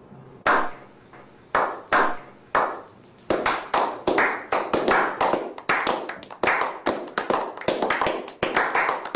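A small group of people doing a slow clap: single sharp claps about a second apart, each trailing off in the room, that build after about three seconds into quicker, overlapping applause.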